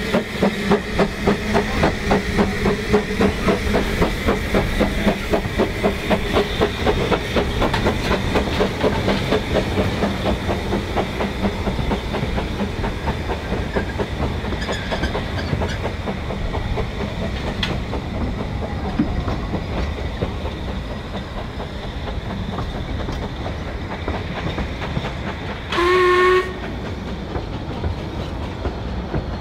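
Penrhyn Quarry Hunslet steam locomotive Blanche pulling narrow-gauge coaches away, with steady exhaust beats at about two and a half a second that fade after ten seconds or so into the rumble and clickety-clack of the coaches rolling past. A short blast on the locomotive's steam whistle comes near the end.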